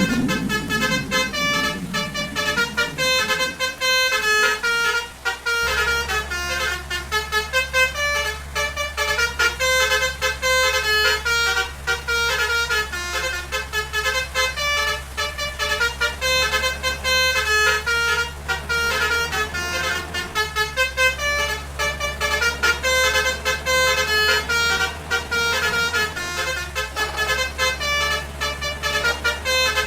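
Basuri 'telolet' multi-trumpet musical air horns playing a quick tune of short honks at shifting pitches. A steady low engine drone runs underneath from about five seconds in.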